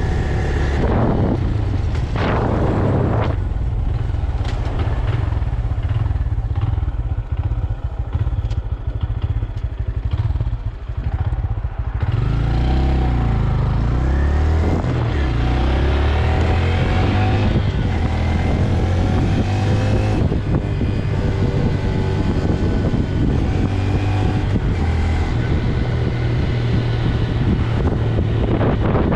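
Stock 2025 Honda Grom's single-cylinder engine on the move, with wind noise on the microphone. It runs low and steady for the first twelve seconds or so, then revs up in a series of rising pulls through the gears and settles into steadier running.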